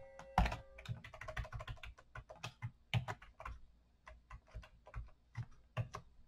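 Typing on a computer keyboard: irregular, light keystroke clicks, coming thick and fast for the first few seconds and then more sparsely.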